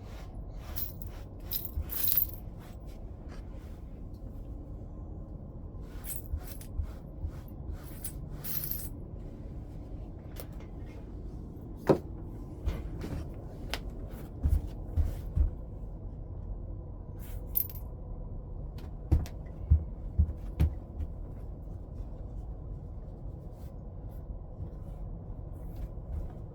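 Flintknapping: hard tools tapping, scraping and clicking against a stone in short clusters, with one sharp strike about twelve seconds in and several dull low knocks after it.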